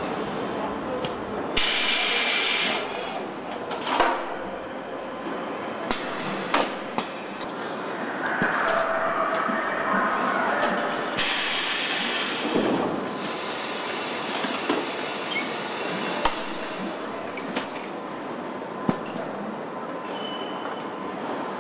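Car assembly line machinery running steadily, with scattered sharp metallic clanks and knocks. Two bursts of hiss stand out, one about two seconds in and another around eleven seconds.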